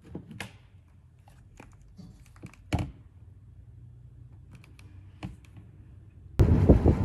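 Irregular clicks and taps of typing on a computer keyboard in a small quiet room, with one louder knock near the middle. About six seconds in it cuts suddenly to loud wind noise on the microphone.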